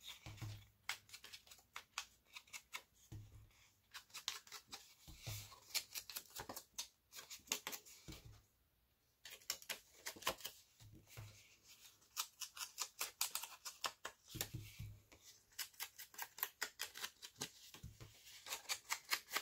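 Foam ink blending tool rubbing over paper edges in quick, faint, scratchy strokes, with a few soft knocks and a short pause about eight seconds in.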